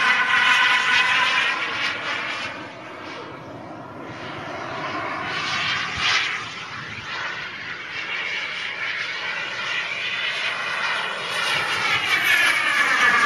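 Small gas turbine of a radio-controlled model jet whining in flight, its pitch falling as it passes. The sound fades, then builds again and sweeps past a second time, pitch dropping, near the end.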